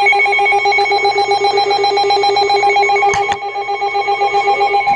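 A weather alert radio sounding its alarm: a loud electronic tone that pulses rapidly and warbles without a break, with a couple of sharp clicks about three seconds in. It signals that an emergency alert, here a severe weather warning, is being received.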